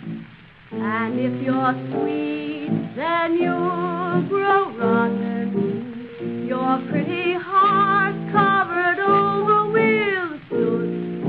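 A solo voice singing with wide vibrato over piano accompaniment, coming in about a second in, from a 1938 original-cast recording. The old transfer sounds dull, with no high treble.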